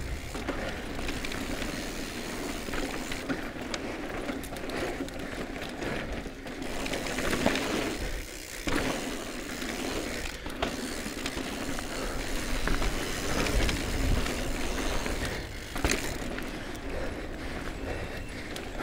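Electric mountain bike ridden fast down a dirt trail: continuous rolling noise of knobby tyres on dirt and stones, with the bike rattling over bumps. The noise dips briefly twice, about eight and sixteen seconds in.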